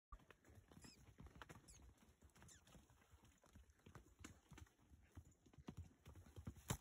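Faint, irregular hoofbeats of a john mule walking over a rocky dirt trail, with one sharper knock near the end.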